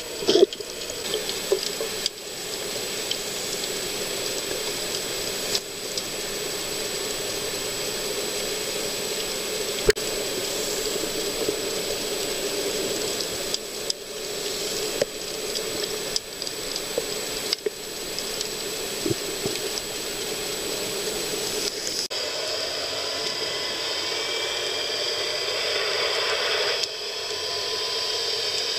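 Underwater sea ambience picked up by a camera underwater: a steady watery hiss with scattered clicks and crackles. The tone of the noise changes abruptly about 22 seconds in.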